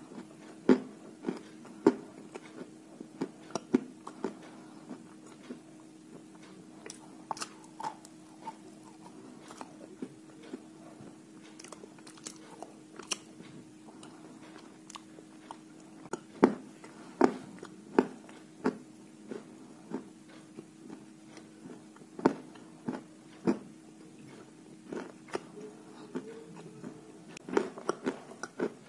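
Dry white chalk pieces being bitten and chewed close to the microphone: irregular sharp crunches and cracks, with a quieter stretch of small crackling in the middle.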